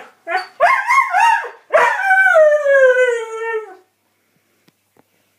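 Northern Inuit dog howling: a few short wavering howls, then one long howl that slides slowly down in pitch and stops about four seconds in.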